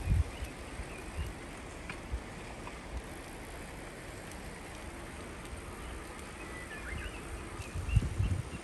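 Wind buffeting the microphone during a bicycle ride, with low gusts just after the start and again near the end over a steady rush of moving air. A few faint high chirps about two-thirds of the way through.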